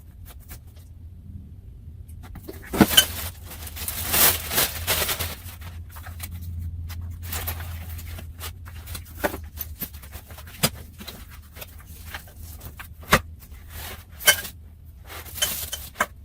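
Handling noise from unpacking and assembling a mini rebounder trampoline: irregular scraping and rustling, with several sharp knocks of parts, the loudest about three seconds in and near the end.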